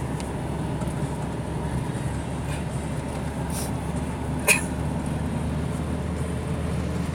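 Steady low drone of engine and road noise inside a moving car's cabin, with one short sharp click a little past halfway.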